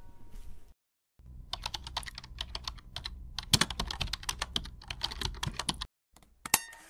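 Rapid, irregular sharp clicks, many per second, for about five seconds, then a pause and one louder knock near the end.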